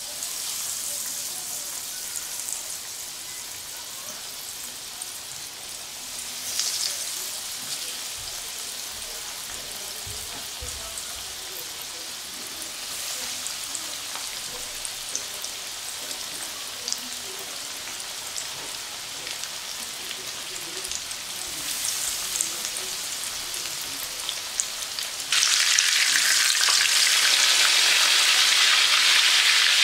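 Hot oil sizzling and crackling in a frying pan as breaded, meat-stuffed Dungan chili peppers shallow-fry. Near the end the sizzle abruptly becomes much louder and stays so.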